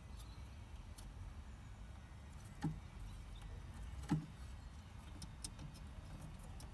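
Faint handling sounds of an H7 headlight bulb being set into a car headlight housing: a few light clicks and taps, the clearest about a third and two thirds of the way through, over a steady low rumble.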